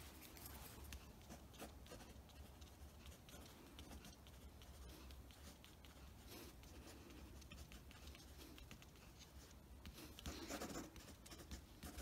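Faint scratching of a mechanical pencil's lead on a paper card as someone writes, a little louder about ten seconds in.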